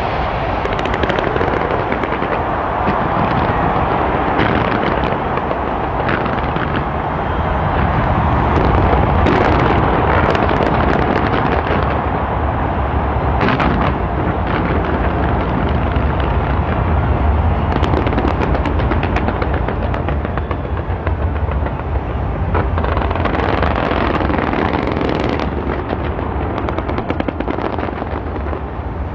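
Fireworks going off in a dense, continuous barrage of rapid, overlapping bangs with heavy bass.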